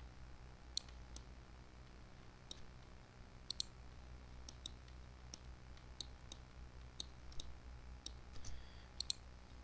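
Computer mouse clicking: about fifteen faint, sharp clicks at irregular intervals, some in quick pairs, over a low steady hum.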